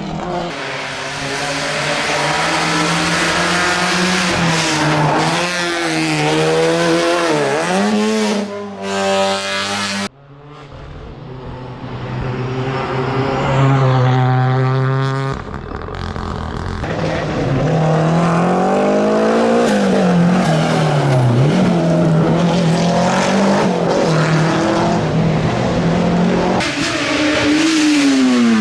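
Race car engines at full throttle, the pitch repeatedly climbing under acceleration and dropping at gear changes and braking. The sound breaks off sharply about ten seconds in and again about fifteen seconds in, each time picking up on another car's run.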